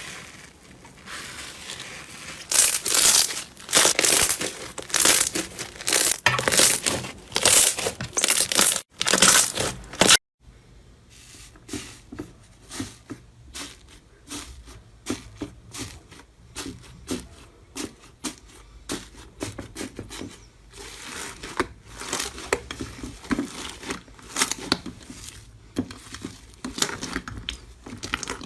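Slime being squeezed and pressed by hand, crackling and crinkling in loud squishes for the first ten seconds. After a sudden break it gives a quieter, quick run of small sharp clicks and pops.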